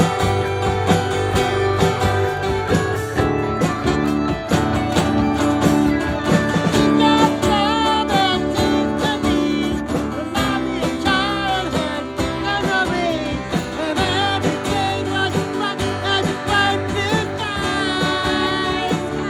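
Live band playing a song with guitars and a steady beat; a singer's voice with vibrato comes in partway through.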